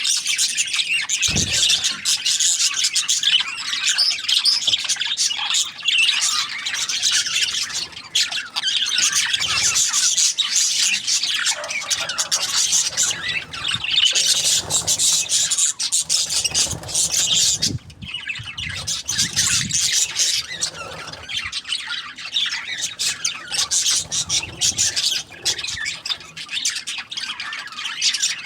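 A flock of budgerigars chattering continuously, with dense overlapping chirps and squawks.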